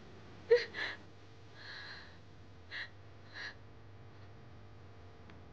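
A young woman crying: a sharp gasping sob about half a second in, followed by a few quieter, shaky breaths.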